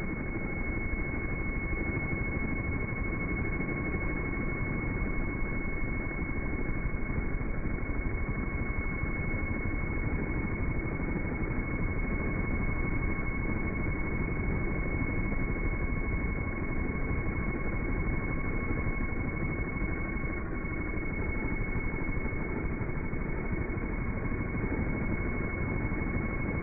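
Helical ultrasonic resonator running in water: a steady low hum and hiss with two faint, even high-pitched tones that never change.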